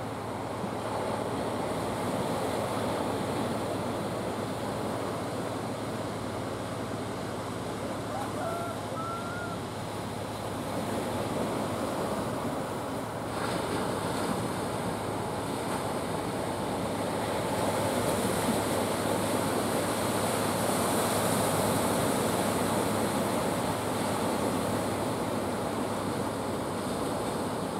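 Ocean surf breaking and washing ashore, a continuous rushing that swells louder about two-thirds of the way through, with wind on the microphone and a steady low hum underneath.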